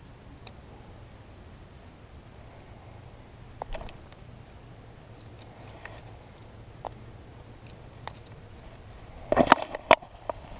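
Handling noise of a caught bass being held in the hand: scattered small clicks and rustles over a low hiss, then a burst of loud knocks and rustles about nine seconds in.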